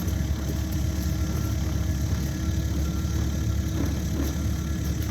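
Cat 308 mini excavator's diesel engine idling steadily.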